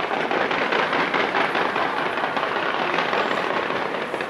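Fireworks launched from the sides of a skyscraper, going off in a continuous barrage of dense, rapid crackling and popping with no let-up.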